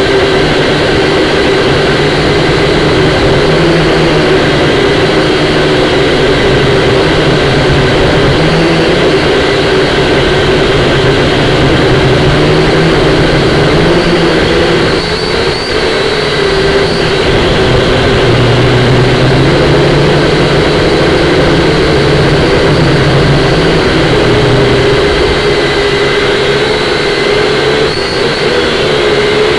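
Syma X5C-1 quadcopter's small motors and propellers whining steadily, the pitch wavering a little as the throttle changes, over a steady rush of wind noise.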